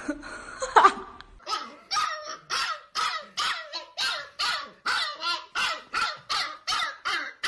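Husky puppy barking in a fast, even run of short yelping barks, about three a second, each bending in pitch, starting about a second and a half in. Before that comes a brief burst of a person's voice, which is the loudest moment.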